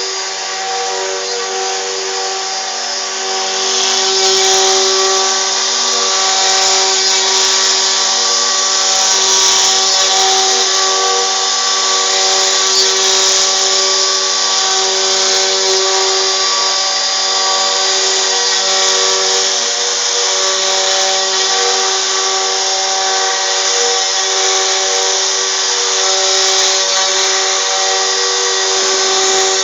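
CNC router spindle running steadily under load as it carves, a constant whine of several fixed tones with a hissing cutting noise that grows louder about four seconds in.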